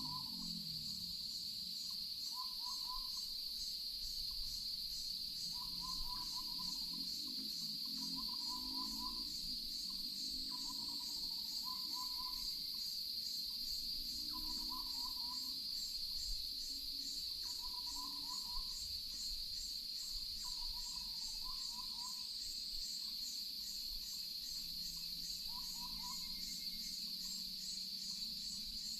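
Chorus of crickets or similar insects: a steady high-pitched ring with a faster pulsing trill above it. A short, lower animal call repeats every few seconds.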